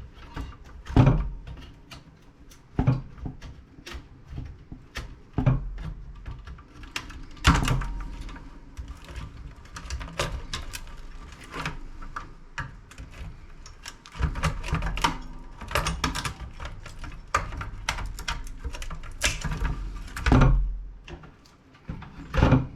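Irregular clicks, knocks and rattles of hands and tools working on an old CRT monitor, pulling wires and connectors off its main board.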